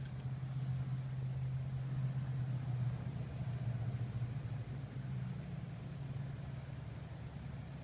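A steady low engine hum, like an engine idling.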